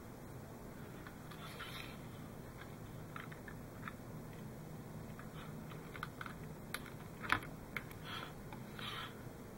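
Faint scattered clicks and rustles of thin wires and a plastic model hull being handled, with one sharper click about seven seconds in.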